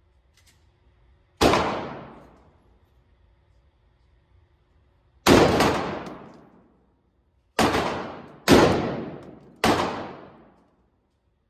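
Anderson-built AR-15 rifle fired five single shots at an indoor range, each crack ringing on and fading over about a second in the enclosed lane. One shot comes about a second and a half in, then after a pause four more follow in quicker succession.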